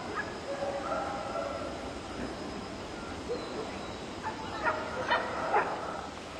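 A dog yipping and whining in short high calls, with three sharp yips close together about five seconds in.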